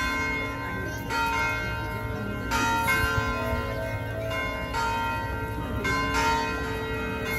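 Bells ringing, a new strike every second or so, each note ringing on over the last.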